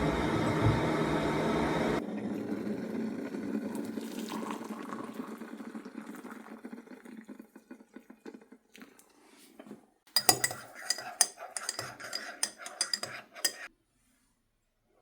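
A steady rushing sound drops sharply about two seconds in and fades away. Near the end a teaspoon clinks rapidly against a mug for about three and a half seconds, stirring honey into lemon and ginger tea.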